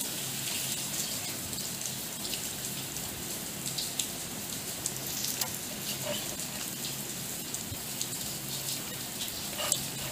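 Chef's knife slicing through a barrel-roasted leg of lamb with a crisp crust, giving faint crackles and clicks over a steady hiss and low hum.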